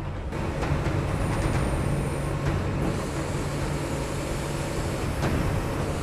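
An engine running steadily with a low hum, as of machinery working.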